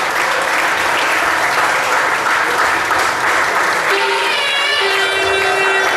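Audience applauding steadily, with a steady held tone sounding over the clapping from about four seconds in.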